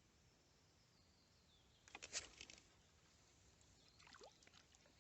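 Near silence, broken about two seconds in by a short burst of small water splashes and clicks, with a fainter splash and rustle around four seconds.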